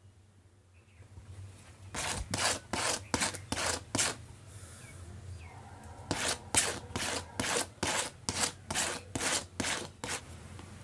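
A rubber inner tube being scraped with a flat abrading tool around the puncture, roughening the rubber so patch solution and a patch will stick. Starting about two seconds in, two runs of quick rasping strokes, about three a second, with a pause of about two seconds between them.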